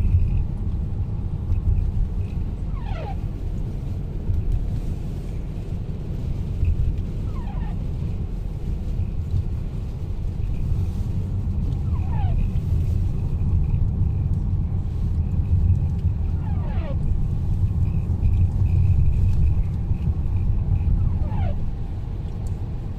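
Heavy, uneven low rumble of a car driving through a snowstorm with strong wind. A short falling squeak comes about every four to five seconds.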